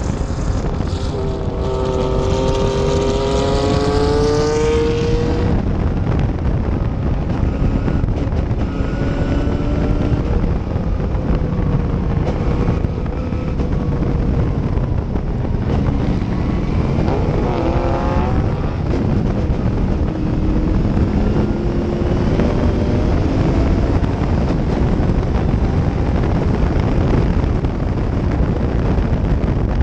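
Gentry Cobra race car's engine at racing speed, heard from the open cockpit with heavy wind rush on the microphone. The engine note climbs in pitch over the first few seconds, then swings up and down again about halfway through as the revs change.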